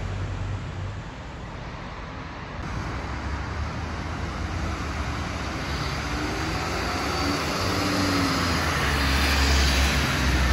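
Buses and a van driving past on a wet road: engine hum and the hiss of tyres on wet asphalt. Both grow louder toward the end as a minibus passes close by.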